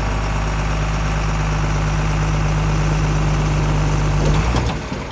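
Heavy truck's engine running steadily close by, shifting in pitch about four seconds in and falling away just before the end.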